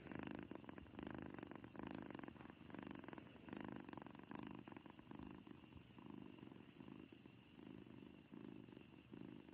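A domestic cat purring softly, the low purr swelling and fading with each breath in and out, more than once a second, and growing fainter in the second half.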